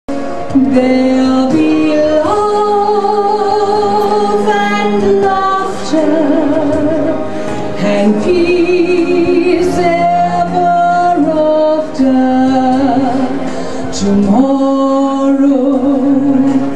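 Music with a woman singing a slow melody, her long held notes wavering with vibrato.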